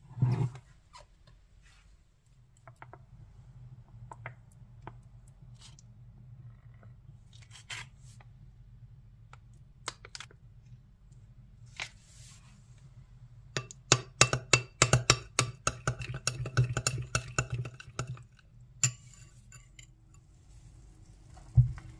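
A metal spoon stirring a sauce in a glass bowl, clinking rapidly against the glass for about four seconds after a few scattered light taps. One single thump near the end.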